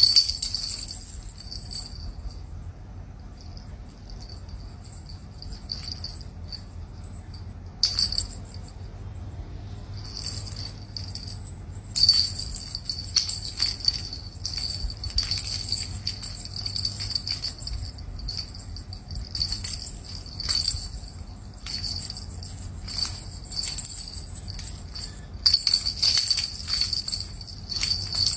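A bell shaken gently, ringing in bright bursts of rapid strikes. There is a burst at the start and a short one about eight seconds in. From about twelve seconds in the ringing is almost continuous, with a short pause a few seconds before the end.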